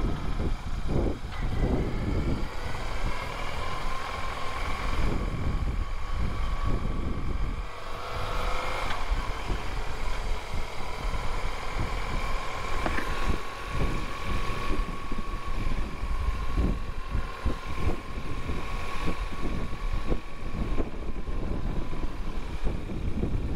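BMW R1150RT motorcycle's boxer twin running at low road speed, speeding up gently, under a heavy rumble of wind buffeting the microphone.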